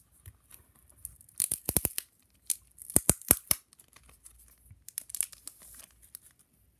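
Packaging being torn open and crinkled by hand: several spells of sharp crackling and ripping, loudest about one and a half and three seconds in.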